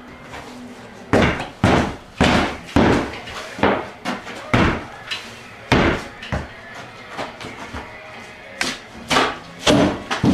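Boots stomping on a cut section of particle-board subfloor, a string of heavy thuds starting about a second in, with a short lull before a last run of blows near the end. The stomping rocks the board to loosen it from the floor joists.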